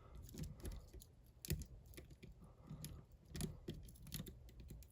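Lock pick and tension wrench working the side pins of a hardened-steel bike lock: a scatter of faint small clicks and scrapes, irregular and a few a second, with the sharpest about a second and a half in and again at about three and a half seconds.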